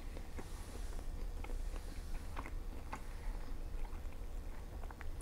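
A man chewing a mouthful of fried Chinese food with his mouth closed, close on a lapel microphone: scattered soft wet mouth clicks over a low steady hum.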